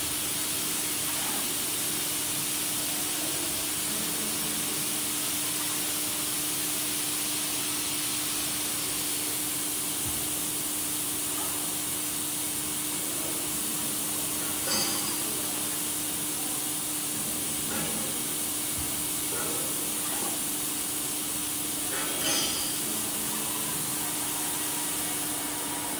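Steady hiss and low hum from a robotic CNC press brake bending cell at work, with two short metallic clicks, one about halfway through and one near the end.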